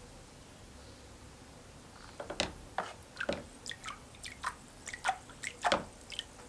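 An irregular run of about a dozen short, sharp ticks and plinks, starting about two seconds in, over a faint steady background.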